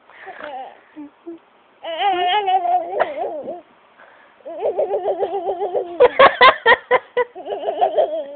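A high voice making wavering, warbling laugh-like noises in spurts, breaking into a run of short choppy bursts about six seconds in.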